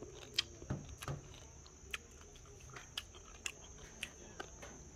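Faint, scattered crunches and clicks of someone eating, chewing crispy dried snakeskin gourami bones and all, over a steady high insect drone.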